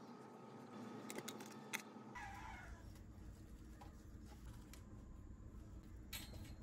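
A domestic cat meows once, a short bending call about two seconds in, over faint room tone. A few light clicks come just before it.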